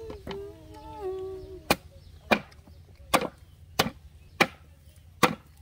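Cleaver chopping a sugarcane stalk into pieces on a wooden board: six sharp chops at an uneven pace of roughly one every two-thirds of a second, starting a little under two seconds in. Before the chops, a voice hums a tune.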